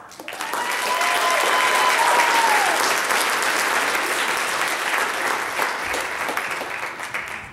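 Audience applauding right after a song ends, dying away near the end.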